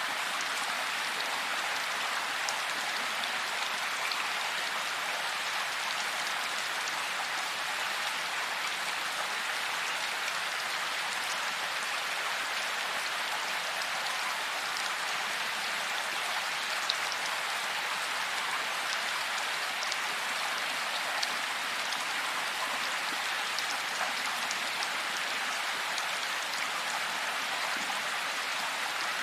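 Steady heavy rain falling, an even hiss with scattered louder drop ticks.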